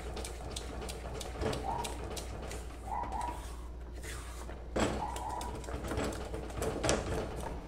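Red silicone spatula stirring and scraping a thick paste of toasted milk powder and condensed milk around a nonstick pan: faint soft scrapes and wet smacks. A few faint short steady high tones sound about a second in, at three seconds and near five seconds.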